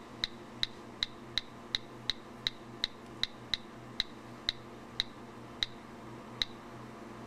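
Ticking of a spinning roulette wheel in a phone app: about three short clicks a second at first, spacing out more and more as the wheel slows to a stop.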